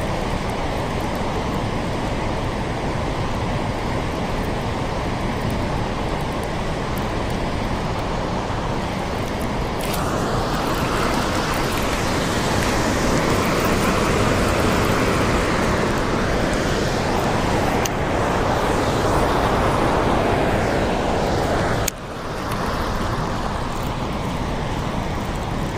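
Steady rush of turbulent water pouring out below a dam, louder and brighter for a stretch in the middle while facing the churning outflow, with one sudden brief dip about four seconds before the end.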